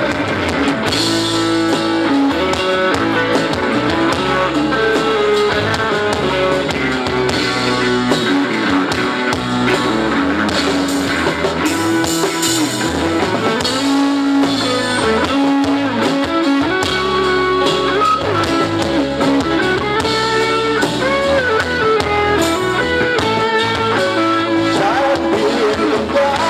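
Live band playing an instrumental break between the sung verses of a Thai pop love song: a melodic lead line over a steady bass and beat.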